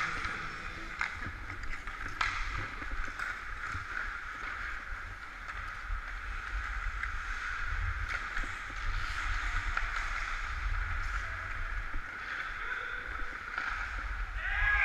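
Hockey skate blades scraping and carving on rink ice, a steady swishing with low rumble beneath. A few sharp clacks of sticks and puck come in the first couple of seconds at the faceoff.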